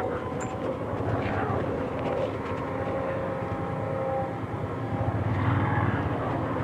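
An engine running steadily: a low drone with a faint steady whine above it.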